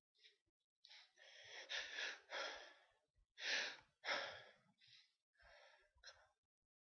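A person gasping and sighing in a run of short, noisy breaths, the loudest two about three and a half and four seconds in, as a sneeze builds up.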